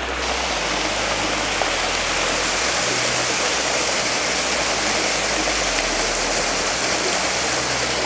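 Waterfall pouring into a pool: a steady, even rush of water.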